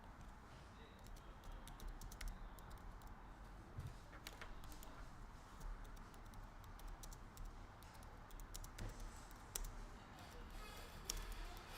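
Light, irregular clicking of typing on a computer keyboard.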